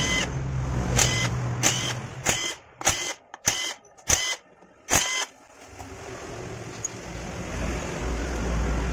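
A cordless driver runs briefly, spinning out motorcycle crankcase bolts, alongside a string of sharp, ringing metallic clacks about every half second for the first five seconds. A steady low hum follows.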